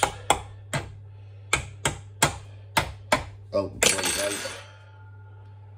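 Metal fork pricking holes in a shortcrust pastry base, its tines striking the baking dish beneath with a sharp tap each time: seven taps at uneven intervals over about three seconds. A short clatter follows about four seconds in, over a steady low hum.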